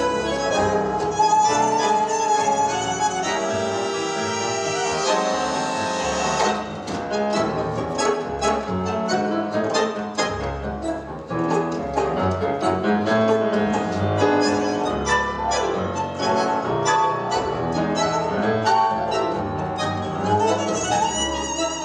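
Live tango quartet of bandoneon, violin, piano and double bass playing. Long held notes give way, about six seconds in, to a choppy run of short, clipped notes.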